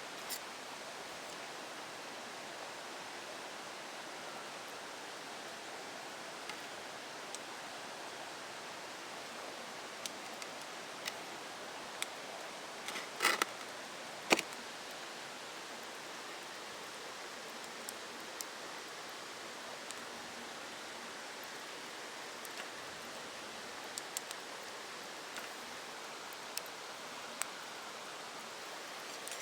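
Wood campfire crackling: scattered sharp pops and ticks over a steady hiss, with a brief cluster of louder pops a little before halfway.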